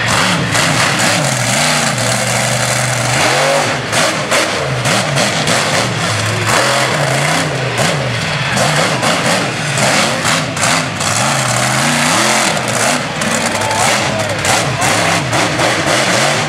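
Monster truck engine revving hard and dropping back again and again, loud throughout.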